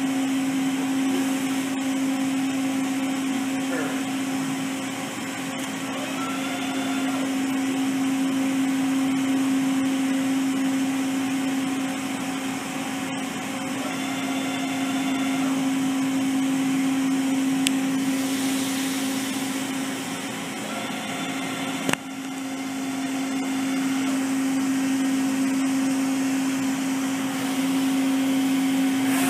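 Makino A77 CNC horizontal machining center running, a steady hum held on one tone. A few brief whines and several sharp clicks sound over it.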